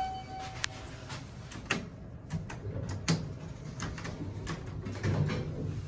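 An elevator's held chime tone ends about a second in. Then come a string of light clicks and taps, among them a car-panel floor button being pressed, and a low hum near the end as the sliding doors start to close.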